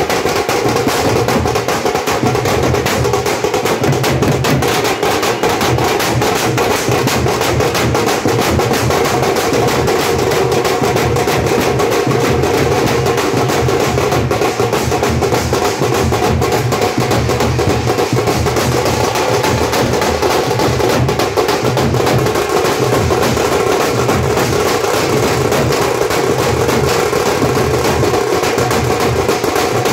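Teenmaar street drum band playing: many stick-beaten drums and large barrel drums pounding out a loud, continuous, fast rhythm, with a recurring deep beat underneath.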